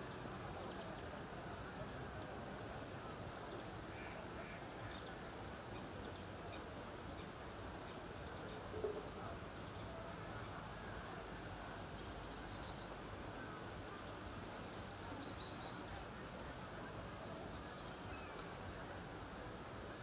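Outdoor ambience: steady background noise with faint, scattered high bird chirps throughout, and one short, slightly louder low sound about nine seconds in.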